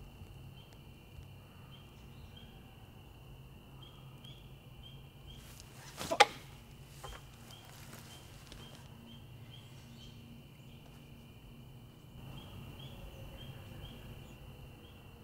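Forest ambience with a steady high insect drone carrying small chirps a few times a second, broken by a single sudden loud impact about six seconds in.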